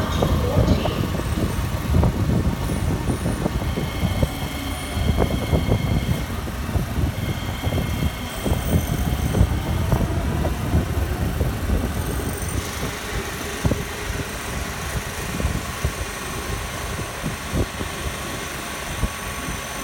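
Kawasaki/CRRC C151B MRT train passing through the station without stopping: a continuous wheel rumble on the rails with many short clacks, and a few faint steady high tones over it. It eases slightly in the second half.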